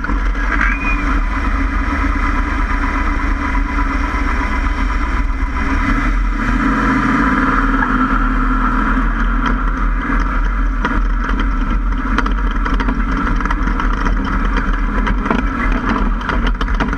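Ford F-150 prerunner driving off-road, heard from the front wheel well: a loud, steady rumble of wind, tyres on dirt and engine, with scattered short knocks from gravel and the working front suspension.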